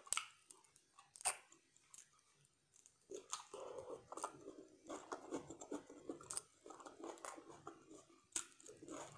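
Close-up chewing and crunching of seafood-boil food. A few sharp clicks in the first three seconds, then continuous chewing with small crunches from about three seconds in.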